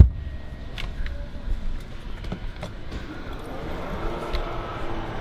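A heavy thump as the cargo-floor panel of a Porsche Cayenne's boot drops shut over the spare-wheel well, followed by a few light clicks and knocks.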